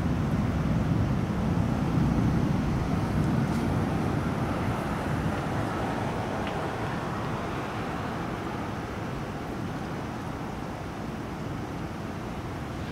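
Distant thunder rumbling low, loudest in the first few seconds and slowly dying away.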